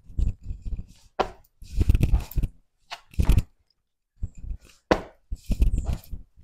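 Hands and sneakers thumping and scuffing on a concrete floor during burpees: irregular clusters of knocks as the body drops to the plank and jumps back up.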